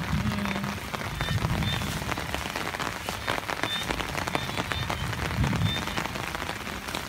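Rain falling steadily on grass and puddles, a dense patter of many small drops.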